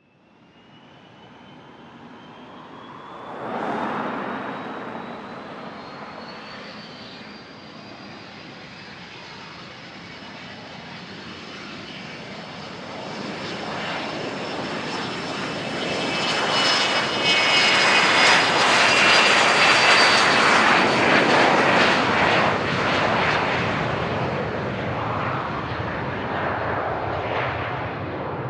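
Jet aircraft passing by, its engines building from a distant whine to a loud, high whistling rush about two-thirds of the way in, then fading. The whine's pitch rises and then drops as the aircraft goes past.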